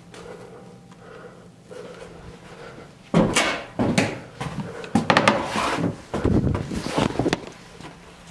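Faint steady hum, then from about three seconds in a run of loud, irregular knocks, bumps and scrapes against wooden panels and framing as someone moves through a cramped space, dying down near the end.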